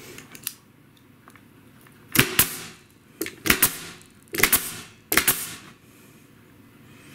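Staple gun firing staples into a plywood subfloor patch: about ten sharp shots in quick pairs and triples, with a lone fainter one near the start.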